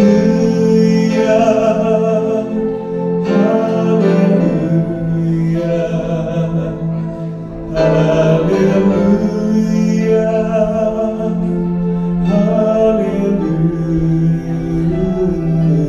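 Slow music with long held notes and singing.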